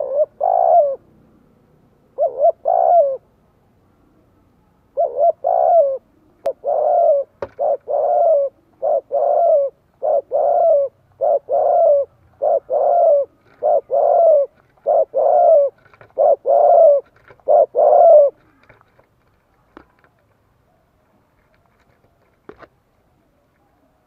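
Spotted dove cooing: repeated two-part coos, a few spaced phrases at first, then a steady run of about a dozen, stopping about three-quarters of the way through.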